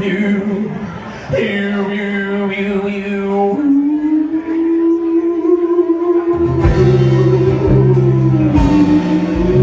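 Live band playing a song: a voice holds long sung notes, each swooping up at its start, over guitar. About six and a half seconds in, bass and drums come in and the music gets louder.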